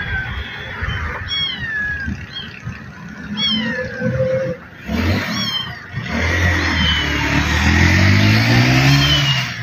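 Stray kittens stuck up a tree mewing, with repeated short, high, falling meows. From about six seconds in, a passing motor vehicle's engine rises in pitch and becomes the loudest sound.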